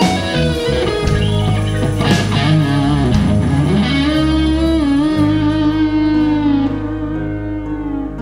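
Electric guitar playing a lead solo with a rock band, bending notes up and down, then settling on one long held note from about halfway through, over steady bass and keyboard backing.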